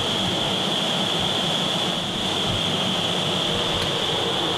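Vertical wind tunnel for indoor skydiving running: a steady loud rush of air with a high whine held through it.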